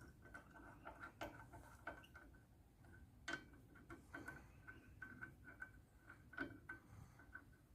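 Faint, irregular small clicks and ticks over quiet room tone, with a few louder taps about three seconds in and again past six seconds.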